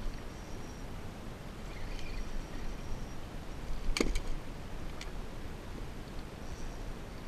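Steady low wind rumble with a few faint high chirps, and a sharp click about four seconds in, with two smaller ticks soon after, as the spinning rod and reel are swung up and handled.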